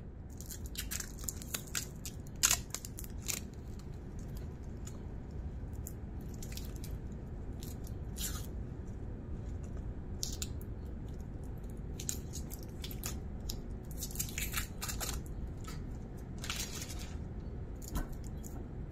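Thin plastic protective film being peeled off a steel watch bracelet and clasp: irregular crackling and rustling with scattered small clicks, in several short clusters.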